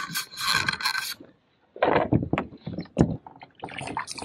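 Hiss for the first second, then a brief cutout, then a run of separate knocks and scrapes against a plastic fishing kayak as a hooked kokanee salmon is brought alongside.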